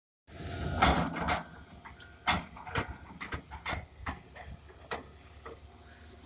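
John Deere excavator at work: a steady low engine rumble with a string of sharp, irregular knocks and clanks, the loudest about a second in.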